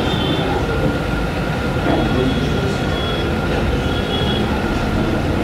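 A loud, steady rumbling noise with a faint steady whine over it, like a passing train or a large machine running.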